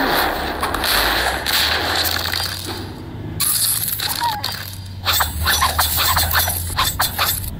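Cartoon fight sound effects: a hissing rush, then a fast run of sharp cracks and impacts from about five seconds in as shots burst the flying rockets.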